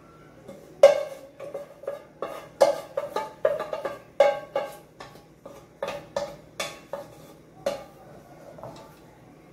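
Aluminium cooking pot clanking: a quick, irregular run of sharp metal knocks, each with a short ring, as the pot is tipped and knocked to empty it. The loudest knock comes about a second in, and the knocks stop near the end.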